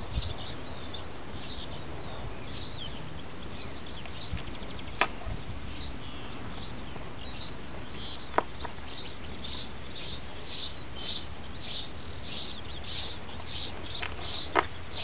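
Birds chirping over a steady background hiss: many short, high calls throughout, with three sharp clicks spread through.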